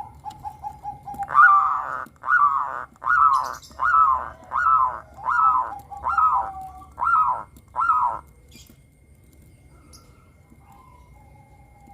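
Zebra dove (perkutut) singing: a quick run of soft low notes, then nine loud, evenly paced coos, about one a second, which stop after about eight seconds. A couple of faint, softer notes follow.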